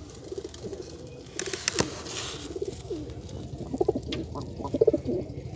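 Domestic pigeons cooing in short, low, throbbing phrases, with the strongest calls about four and five seconds in. A single sharp tap comes near two seconds.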